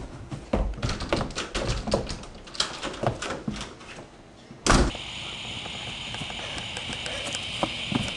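Footsteps thudding down carpeted stairs, about two to three steps a second, then one loud sharp knock a little over halfway through. After the knock a steady high-pitched outdoor hum runs on, with a few faint clicks.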